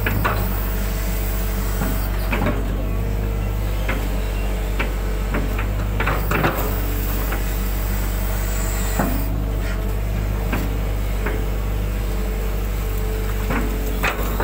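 Hitachi 120 excavator's diesel engine running steadily, heard from the cab, with scattered clicks and knocks as the bucket scrapes and levels mud.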